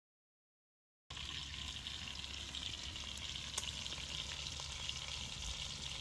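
Half a leg of lamb searing in a cast iron pot hung over a wood fire: steady sizzling with a few sharp crackles from the fire. It starts suddenly about a second in, after total silence.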